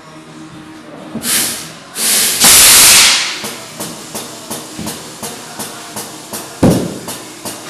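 Compressed air hissing into a tyre mounted on a tyre-changer: a short blast, then a long, very loud rush of air. After it comes a run of short, regular bursts of air, about two a second. About two-thirds of the way through there is one sharp thump.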